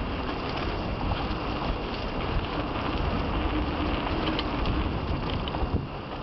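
Wind buffeting the microphone over the rumble and rattle of a mountain bike riding a dirt trail, with scattered small clicks.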